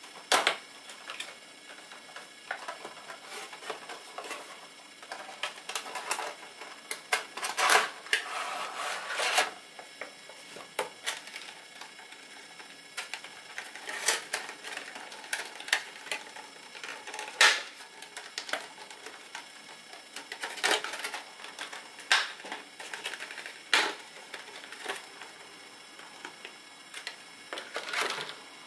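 Hands handling a cardboard toy box and a clear plastic insert tray: irregular clicks, taps and scraping rustles, with a longer run of rustling about eight seconds in.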